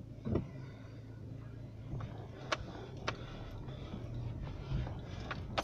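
Car engine running low and steady, heard from inside the cabin as the car moves slowly, with a few short sharp knocks and rattles scattered through it.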